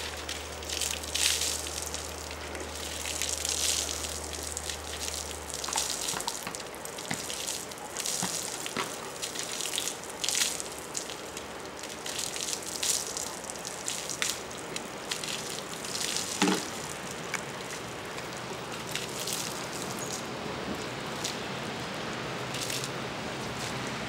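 Water sloshed from a bucket over a horse's wet coat and running off onto wet concrete, in repeated splashes every second or two.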